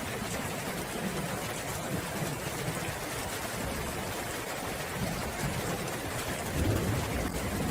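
Steady rain with a low rumble of distant thunder underneath, swelling briefly near the end.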